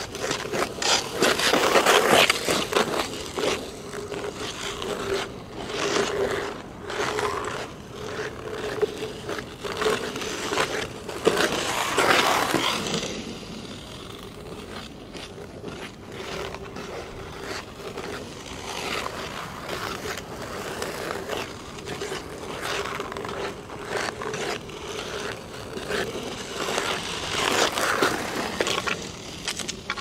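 Ice skate blades on hard natural black ice, scraping and cutting in repeated strokes as skaters glide past close to the ice. The scraping swells loud and fades away several times.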